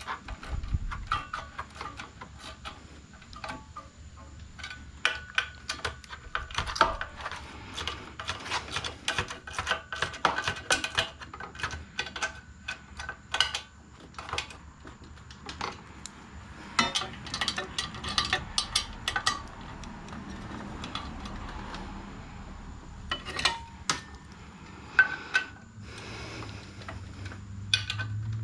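Metal hand tools and small engine parts clinking and tapping irregularly, some strikes ringing briefly, while the valve cover of a small Honda engine is bolted back on. A low hum comes in near the end.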